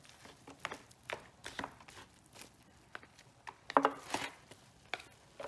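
Kitchen knife and plastic spoon scraping and tapping against a disposable aluminium foil pan while pulling apart cooked turkey meat: irregular clicks and crinkles of the foil, with a louder knock about four seconds in.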